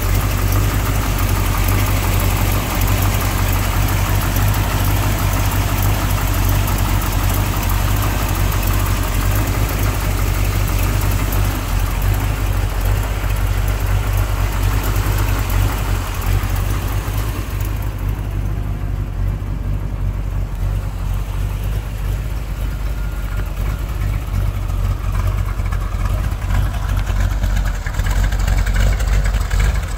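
1969 Corvette's numbers-matching 350 cu in, 350 hp small-block V8 idling steadily.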